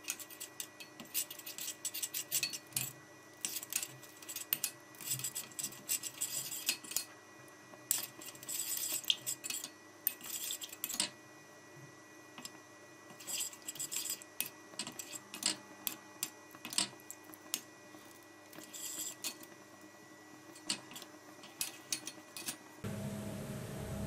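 Metal spoon stirring in a small stainless steel saucepan, clinking and scraping against the pan's sides in irregular bursts with short pauses. The pan holds olive oil with grated beeswax melting in it over low heat.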